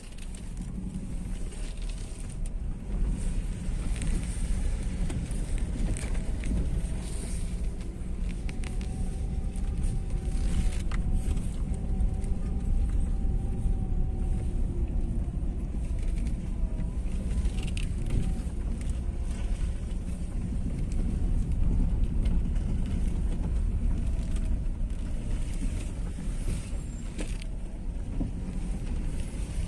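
Car cabin sound while driving slowly over a rough, potholed dirt road: a steady low rumble of engine and tyres, with scattered knocks and rattles as the car jolts over the holes.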